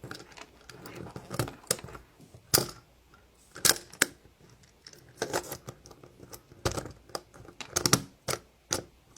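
Hard plastic Monsters University Roll a Scare toy shells being handled and snapped together, giving irregular sharp clicks and knocks with short pauses between them.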